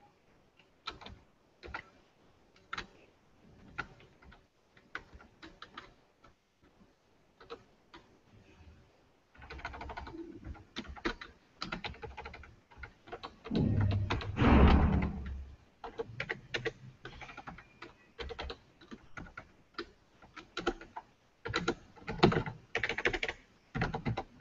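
Computer keyboard typing in irregular runs of keystrokes, sparse at first and busier later on. About two-thirds of the way through there is a louder muffled noise lasting a couple of seconds.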